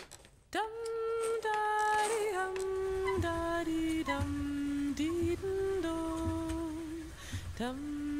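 A woman's voice singing a slow, wordless melody in long held notes, with a short break before the tune resumes near the end.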